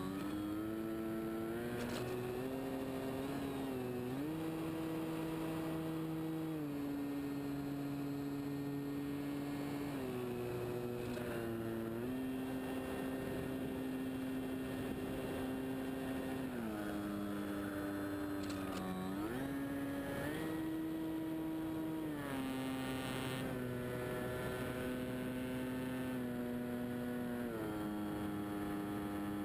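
Motor and propeller of a radio-controlled scale de Havilland Tiger Moth biplane model heard from on board in flight: a steady drone whose pitch steps up and down several times with throttle changes.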